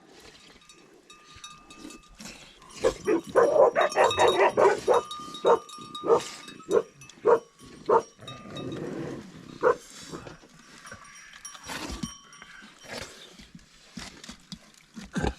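Dog barking: a quick run of barks, then single barks spaced out and thinning over several seconds.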